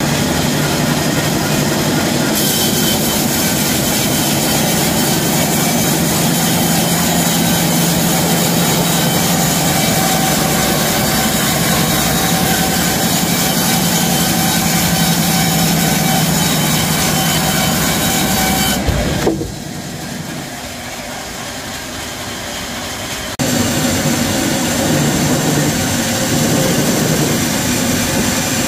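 Sawmill band saw cutting lengthwise through a cedar log to slice off a 70 mm board: a loud, steady machine hum under the hiss of the blade in the wood. About 19 s in the noise drops for some four seconds, then comes back at full level.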